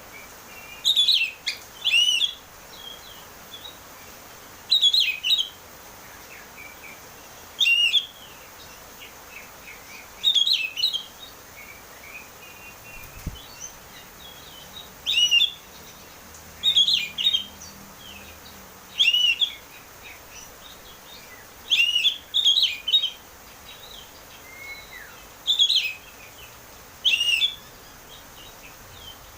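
Oriental magpie-robin (kacer) singing its clear, open 'ngeplong' song. Short whistled phrases of rising and falling notes come every one to three seconds, with brief pauses between them.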